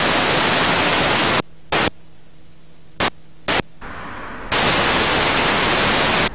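Loud static hiss of a noisy video tape playing, cutting in and out: a long burst, then three short bursts, then a long burst in the second half, with a low hum in the quieter gaps.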